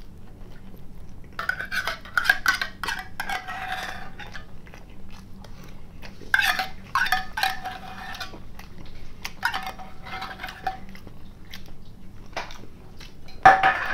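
Metal spoon scraping and clinking against the inside of a small tin of caviar, scooping out the last of it. The scraping comes in three bouts, with a sharp clink near the end.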